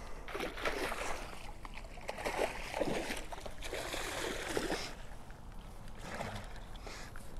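A pike thrashing in a landing net at the water's surface, splashing and sloshing in irregular bursts.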